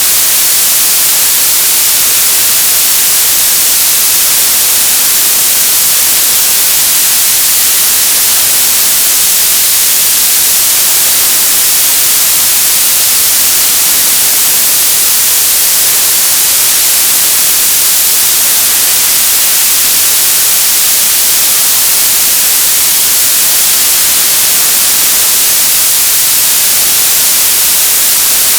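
Television static: a loud, steady hiss of white noise, strongest in the treble, with no change.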